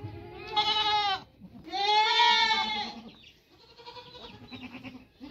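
Goats bleating: two loud, wavering bleats, the first about half a second in and the second about two seconds in, each roughly a second long, then fainter calls.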